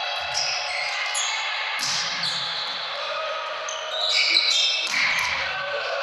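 Volleyball play in a sports hall: the ball is struck with a low thump twice, about two seconds in and again near five seconds, over constant reverberant hall noise with players' voices.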